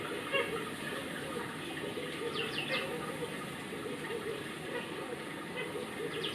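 Steady rush of running water under a faint murmur of voices, with a few quick, high, falling chirps about two and a half seconds in and again near the end.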